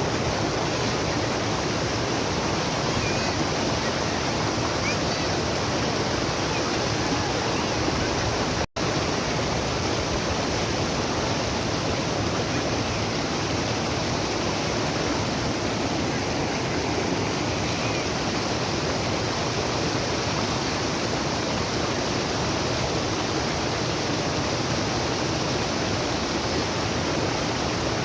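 Steady rush of a waterfall, an even unbroken roar of water that cuts out for a split second about nine seconds in.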